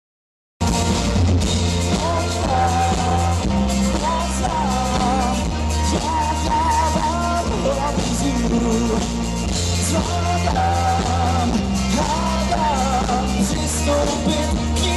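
Rock band playing live: a male lead vocal sung over electric guitars, bass and a drum kit. Silent for the first half-second, then the music cuts in abruptly.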